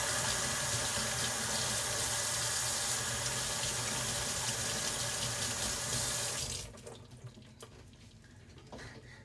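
Kitchen tap running water into a sink in a steady stream, shut off about six and a half seconds in.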